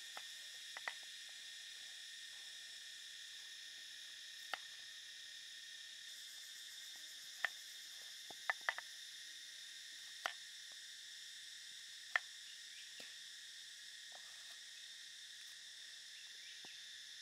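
A knife knocks sharply on a wooden cutting board about eight times, spread out, with a quick cluster a little past halfway, as shallots are sliced. Under it runs a steady, high-pitched insect chorus.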